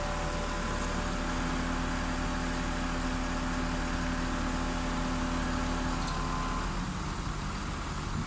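650 kg bell ringing on after a strike, several of its tones sounding together and dying away about seven seconds in, over a steady background hiss.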